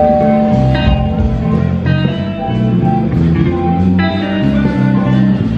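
Music led by guitar, with plucked notes over a changing bass line.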